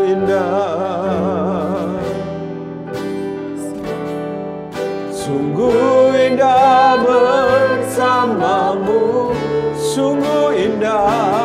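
Worship song: a sung melody with instrumental accompaniment. A short instrumental passage comes first, then long held sung notes with vibrato from about five seconds in.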